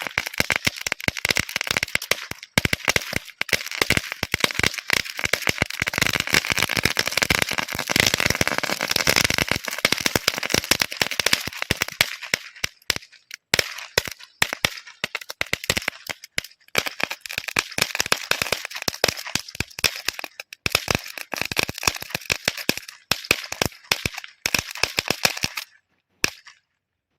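A 'magic sound' digital wala firework going off as a rapid chain of sharp cracks, like a 1,000-shot cracker string. The cracks are densest in the first ten seconds, thin out after about twelve seconds and stop suddenly near the end.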